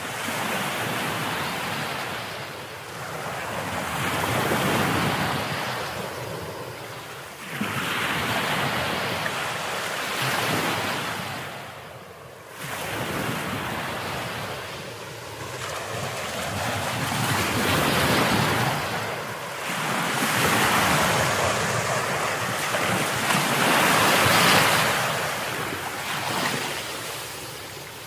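Ocean waves washing in and out, a rushing surge that swells and falls away every few seconds.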